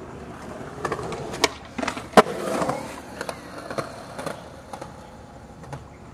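Skateboard sounds across concrete: wheels rolling, with a series of sharp clacks and slaps of boards hitting the ground, the loudest about two seconds in.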